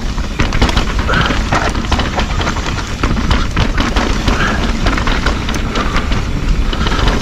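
Mountain bike riding downhill over rough, muddy ground: steady wind rumble on the microphone, with a constant clatter of knocks and rattles from the bike and tyres over bumps.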